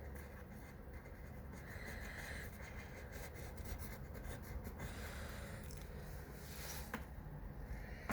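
Scratchy strokes of drawing by hand, a drawing tool rubbing and scraping across the drawing surface in short irregular strokes, over a faint steady low hum.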